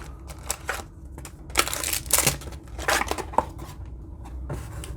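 Handling of a cardboard card box and its contents: scattered rustles, scrapes and light knocks, busiest in the middle.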